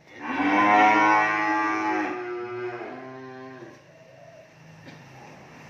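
A cow moos loudly for about two seconds, then gives a second, shorter moo that falls in pitch about three seconds in.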